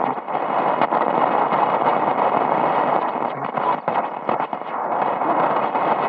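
Shortwave hiss and crackling static from a 1960s Drake 2B valve receiver's loudspeaker, tuned between stations on the 40-metre band. The noise is steady and held in by the set's narrow 3.6 kHz passband, with frequent sharp crackles.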